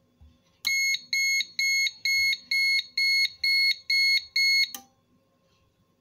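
Alarm buzzer beeping in a steady pulse, about two high beeps a second, nine in all, switched on through a Sonoff Basic RFR3 relay when the door contact sensor is opened. It cuts off suddenly with a click after about four seconds.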